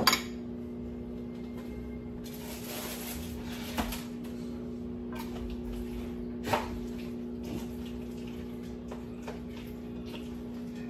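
Kitchen clatter of dishes being set down: a sharp clack right at the start, then two softer knocks about four and six and a half seconds in, over a steady hum.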